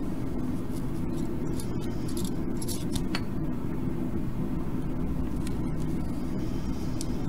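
Small light clicks and clinks as LED leads are handled and fitted into a 4x4x4 LED cube kit's circuit board, over a steady low background hum.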